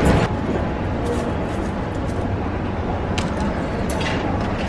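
Steady low background hum in a parking garage, with a few sharp clicks around the parking pay machine.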